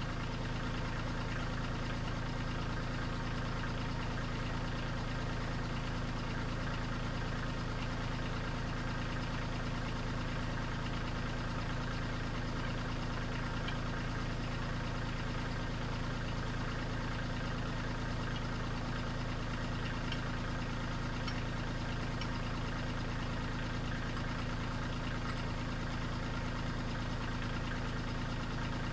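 Kubota diesel engine idling steadily, with no change in engine speed.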